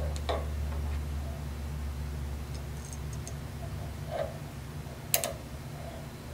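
A few light clicks and taps of a small screw and nylon washers being handled and fitted, with one sharper click a little after five seconds, over a steady low hum.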